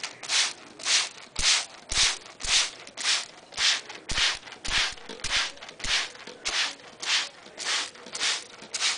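Hand spray bottle misting a pet parrot for its bath: short, even squirts, about two a second, with a few soft knocks in between.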